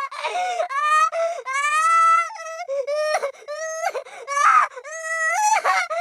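High-pitched cartoon crying sound effect: a squeaky voice wailing in drawn-out sobs that waver in pitch, with short breaks between them.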